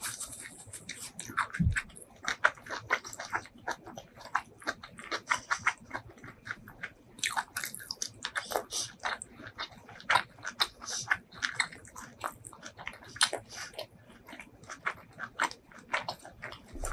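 Close-miked ASMR chewing of a hand-fed mouthful of spicy beef tripe curry: a steady stream of wet, sticky mouth clicks and lip smacks. A soft low thump about two seconds in.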